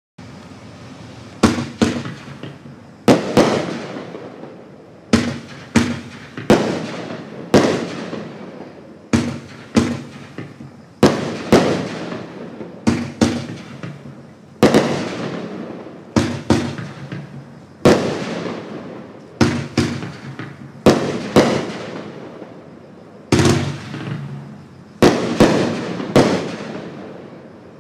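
Black Cat 'Pink' multi-shot fireworks cake firing. It gives a long run of sharp bangs, often in close pairs, about one a second, each dying away before the next.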